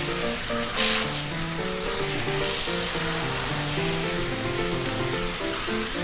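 Hose spray nozzle hissing as a jet of water is driven through an air-conditioner filter's mesh and splashes on the ground, rinsing the filter clean. The spray swells briefly about a second in. Background music plays under it.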